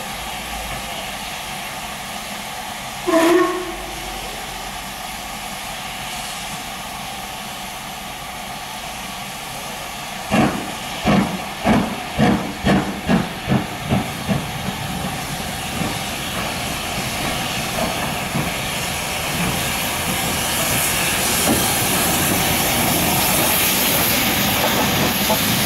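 LMS Stanier 8F two-cylinder 2-8-0 steam locomotive hissing steam, with a short blast on its whistle about three seconds in. About ten seconds in it starts away with a run of about ten chuffs from the chimney that come quicker and then fade into a steady hiss, which grows louder as the engine draws near.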